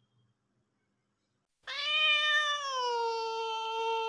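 A domestic cat's single long, drawn-out meow. It starts suddenly about halfway through, slides a little lower in pitch, then holds steady and is still going at the end.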